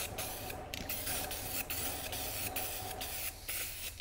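Aerosol can of silver spray paint hissing as it sprays, with a couple of brief breaks where the nozzle is let go.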